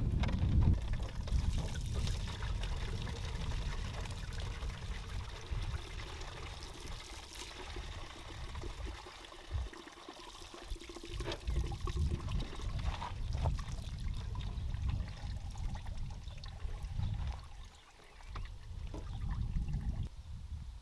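Deionised water draining out of the opened cooling system of a Fiat Bravo 1.6, pouring and trickling steadily, with the flow easing and picking up again.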